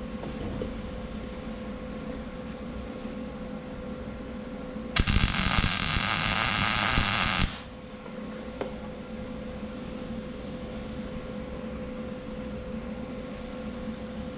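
A welding arc running for about two and a half seconds, a loud even hiss that starts and stops abruptly, over a steady shop hum with a constant tone.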